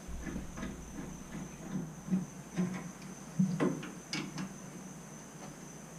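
Tools and parts being handled on a water heater: scattered light clicks and knocks, loudest a little past halfway, over a steady high-pitched whine.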